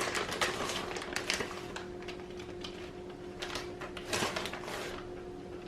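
Light kitchen handling: scattered soft clicks and short rustles as food is worked on a counter, with a brief louder rustle about four seconds in, over a steady low electrical hum.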